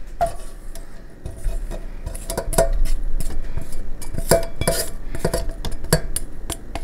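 A bowl clinking and scraping against a stainless steel stand-mixer bowl and its wire whisk as dry powder is tipped and tapped out of it: irregular metallic taps and clinks, some with a short ring, coming thicker about halfway through.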